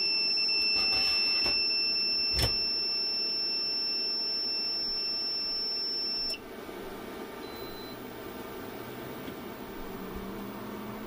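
Renogy inverter-charger's alarm buzzer sounding one steady high-pitched tone for about six seconds, then cutting off. This is its fault alarm after shutting down on low battery voltage at 12 volts. A click comes about two and a half seconds in, and a low hum starts near the end.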